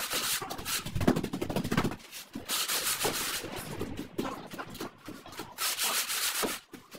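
Straightedge scraping across wet sand-cement floor screed as it is leveled, a gritty rasping in separate strokes a few seconds apart.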